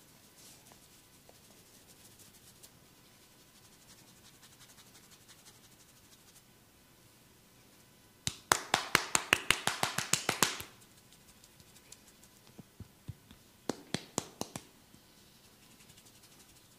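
Rapid sharp hand slaps of a percussive massage, about eight a second for a couple of seconds, then a shorter run of about six a few seconds later.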